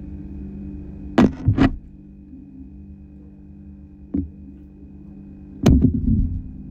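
A steady low hum, with sharp knocks and thumps breaking in: two just over a second in, one about four seconds in, and a short rattling cluster near the end.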